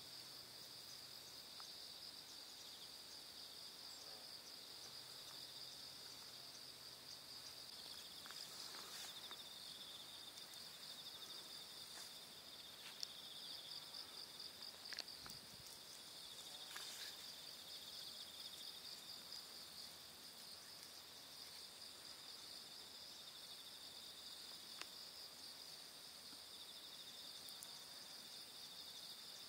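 Faint, steady, high-pitched insect trilling, with a second, slightly lower pulsing trill joining about a quarter of the way in. A few faint clicks stand out briefly.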